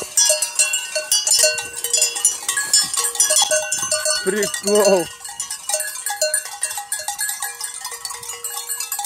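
Bells on a large flock of sheep clinking and ringing without pause, many small pings at different pitches overlapping.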